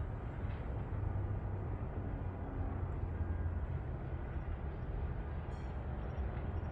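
A steady low rumble from a large fire that keeps on exploding.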